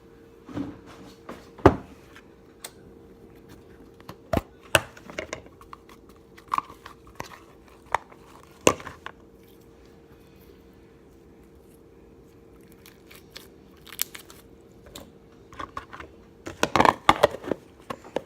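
Slime being handled and squished, making scattered sticky clicks and crackles. There is a busier run of crackling near the end.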